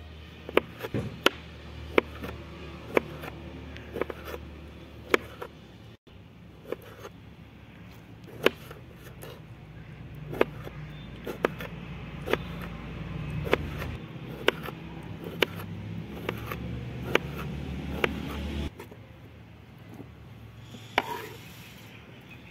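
A steel kitchen knife slicing tomatoes on a wet wooden cutting board: sharp knocks of the blade striking the board, irregular, roughly one a second. A low steady rumble runs underneath and drops away about nineteen seconds in.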